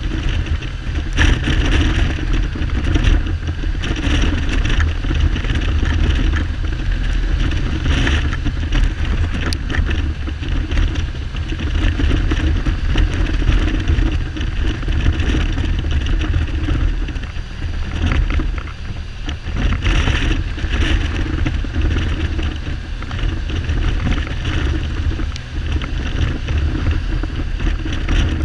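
Wind buffeting the microphone over a Kawasaki Z1300's inline six-cylinder engine running on the move, not firing on all cylinders. Helmet rattles come through now and then.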